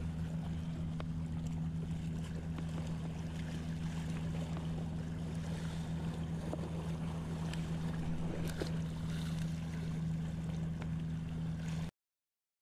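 Steady low engine hum with wind noise on the microphone; the sound cuts off abruptly near the end.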